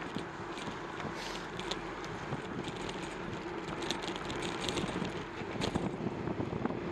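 Bicycle being ridden: steady tyre and wind noise with scattered small ticks and rattles from the bike.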